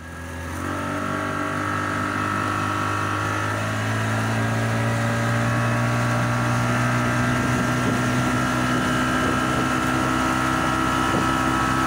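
Motorboat engine running steadily, heard from aboard the boat under way; it fades in at the start and gets a little louder from about four seconds in.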